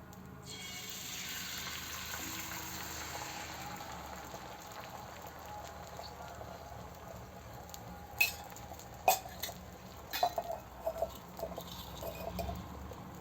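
Beaten eggs sizzling as they hit hot oil on a heated dosa griddle; the hiss rises about half a second in and slowly settles. A few sharp utensil clinks come in the second half.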